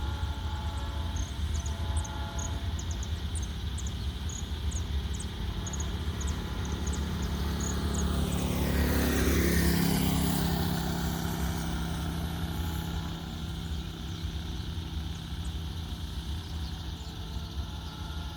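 A vehicle passes close by about halfway through, its sound swelling and then fading over a few seconds, over a steady low rumble.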